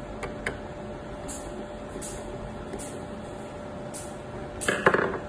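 The outer casing of a small electronic device being handled and fitted: a few light clicks, several short scraping swishes, then a louder clatter of knocks about four and a half seconds in.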